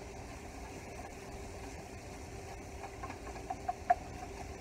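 A silicone whisk stirring diced onions and seasonings in melted butter in a nonstick skillet, with a few light taps against the pan about three and a half to four seconds in, over a low steady hum.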